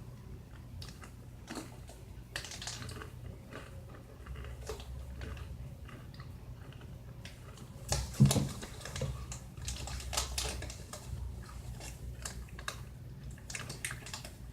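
Crunchy Combos pretzel snacks being bitten and chewed: a run of irregular crisp crunches, the loudest a little past the middle.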